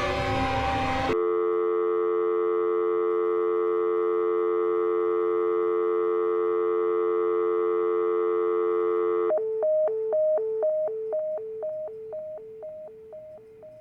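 About a second of noisy background sound cuts off abruptly and a steady telephone dial tone takes over for around eight seconds. It then gives way to a rapidly pulsing tone, about three beeps a second, like an engaged signal, which fades away.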